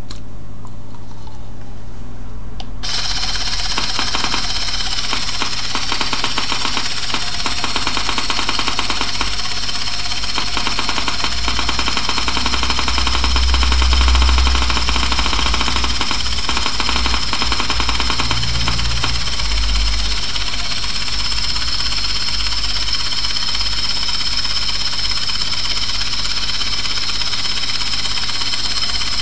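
3Shape TRIOS intraoral scanner buzzing as it scans inside the mouth: a steady mechanical buzz with a fine rattle switches on abruptly about three seconds in and holds, with a low rumble swelling briefly around the middle.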